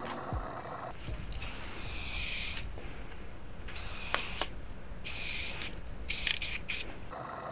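Aerosol spray-paint can hissing in six bursts: a long one of about a second, two shorter ones, then three quick puffs near the end.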